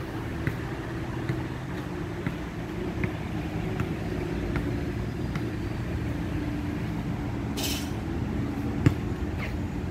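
A steady low rumble of city traffic, with regular soft footstep ticks from walking on a paved path, about one every 0.8 seconds. A short high hiss comes near eight seconds in, and a sharp knock about a second later.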